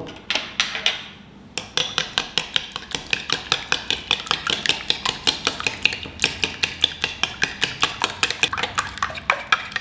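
Metal spoon beating raw eggs with seasoning in a glass bowl, clinking against the glass in a fast, even rhythm of about five strokes a second from about a second and a half in.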